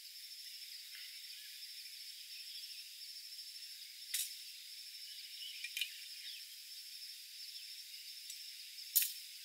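Steady high-pitched chirring of insects, with a few sharp clinks of metal camp cookware being handled; the loudest clink comes near the end.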